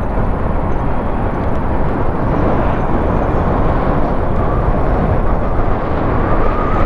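Wind rushing over the microphone of a moving electric bike, with tyre and road noise; the wind noise is heavy and even at the low end, and there is no engine sound.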